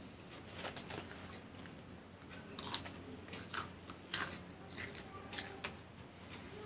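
Popcorn being picked up by mouth from a sheet of newspaper and chewed: faint, irregular soft crunches.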